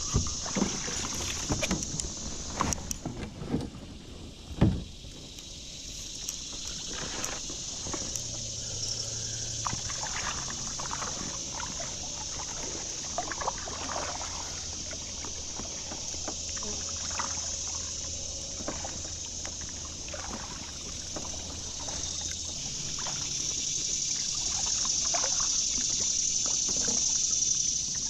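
Fast creek current rushing steadily, with scattered clicks and knocks, the loudest a sharp knock about four and a half seconds in.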